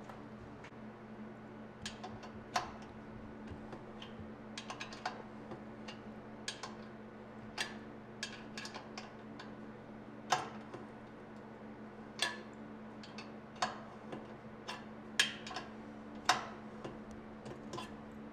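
Sharp metal-on-metal clicks and taps at uneven intervals, some in small clusters, from a nut and hand wrench being worked onto the exhaust midpipe's bolts by hand, over a steady low hum.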